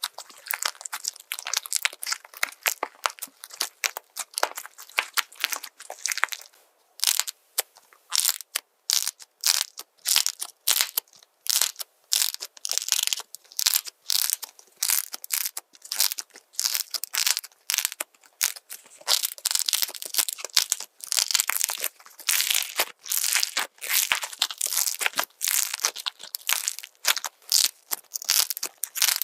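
Crunchy slime being squeezed and pressed by hand, giving dense, irregular crackling and crunching in quick runs with short pauses between.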